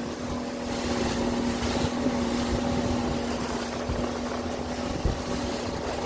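Motorboat engine running steadily under way, a constant hum, over a steady rush of wind and water noise.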